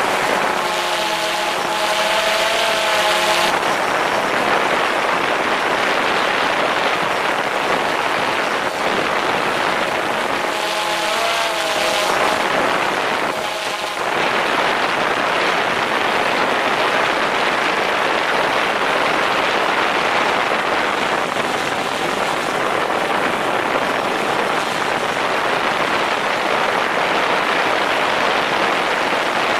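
DJI Phantom 4 quadcopter's propellers and motors running in flight, heard from a camera mounted directly beneath them: a loud, steady rushing hum. A wavering pitched tone rises out of it twice, near the start and about halfway through, as the motor speeds change.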